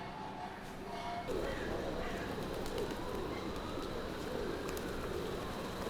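Pigeons cooing: a low, wavering, repeated coo that starts just over a second in and goes on.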